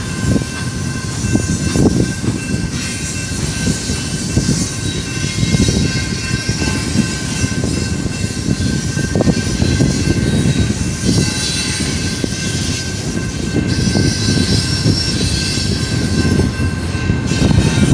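Double-stack intermodal freight cars rolling slowly past on steel wheels: a steady rumble with irregular knocks and clatter from the trucks, and a steady high tone running over it.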